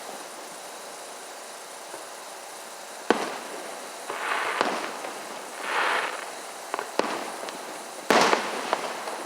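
Fireworks going off: four sharp bangs spread over several seconds, the loudest about three seconds in and just after eight seconds, with two rushes of hissing noise between them.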